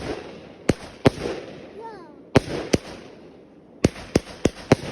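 Broken firework going off in a fire: a run of about eight sharp bangs at irregular intervals, the last four coming in quick succession near the end.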